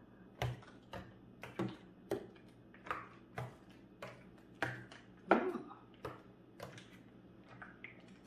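Metal spoon clinking and scraping against a glass mixing bowl as a thick, creamy fruit salad is stirred: irregular clinks, about one or two a second.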